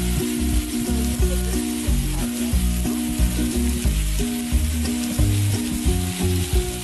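Raw thin-sliced chicken breasts frying on a hot three-burner gas griddle's flat top, a steady sizzling hiss. Background music with a pulsing bass line plays over it.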